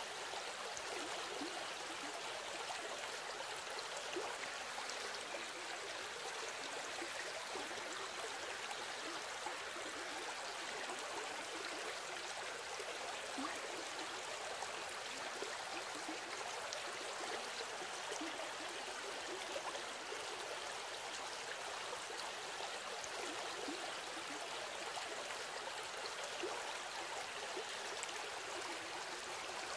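Steady sound of flowing water, like a stream: an even rush that does not change.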